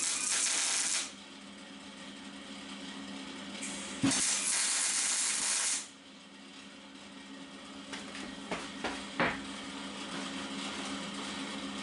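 Two tack welds on steel box-section framework: the welding arc hisses and crackles for about a second at the start and again for about two seconds from around four seconds in, then cuts off sharply. A steady hum runs between the tacks, and a few light clicks come near the end.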